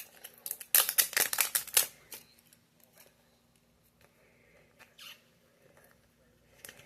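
Plastic packaging of a blind-pack mini figure being handled and opened: a rapid run of crinkling crackles in the first two seconds, then a short rustle about five seconds in.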